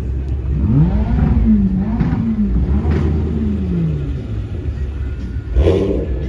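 A car engine revved several times over a steady low idle: the pitch climbs, rises and falls a few times, then drops back over about three seconds. A short, louder burst comes near the end.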